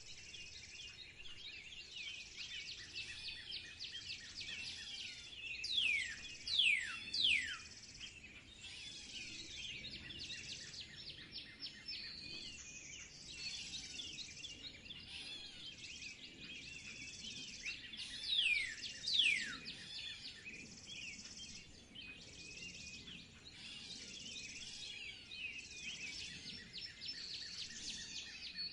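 Many birds chirping and calling at once in a dense spring chorus. Several loud, sharply falling whistled calls stand out: three in quick succession about six seconds in, and two more around nineteen seconds.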